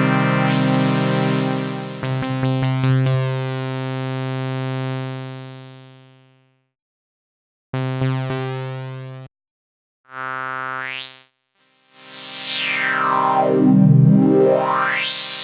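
Cherry Audio GX80 software synthesizer, an emulation of the Yamaha GX-1, playing a low held note as its tone is reshaped from a GX-1 tone board. The note fades away, two short notes follow with silent gaps between, one with a fast upward sweep, and near the end a bright sweep glides down and back up over the held note.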